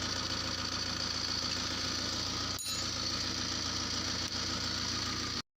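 Pickup's diesel engine idling steadily with a fast, even chug. It cuts off suddenly near the end.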